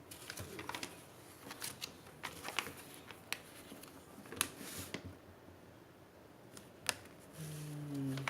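Paper and card being handled: scattered light rustles and clicks, with a longer rustle about four and a half seconds in and a sharp click near seven seconds. A short low hum comes near the end.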